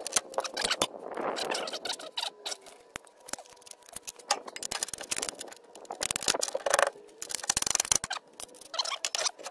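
Metal clinks, knocks and scrapes of tools and Ford Territory front suspension parts as the replacement ball joint on the lower control arm is levered up into the steering knuckle with a pry bar. Sharp clicks run throughout, with a dense rattling stretch about six to eight seconds in.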